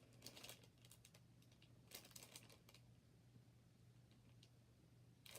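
Faint small clicks and light rustling of beauty products and their packaging being handled, in a few short clusters over near silence.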